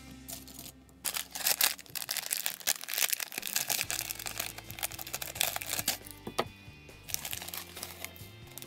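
Crinkling of a clear plastic Lego parts bag as it is handled and cut open with scissors, from about a second in to about six seconds in, over background music.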